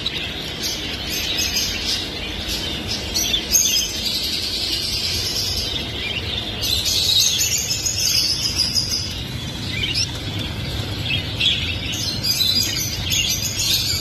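A cage full of budgerigars chirping and chattering continuously, many short high calls overlapping, over a low steady rumble.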